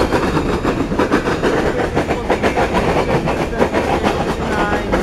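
Empty coal gondola cars of a freight train rolling past, with a steady rumble and wheels clicking over the rail joints.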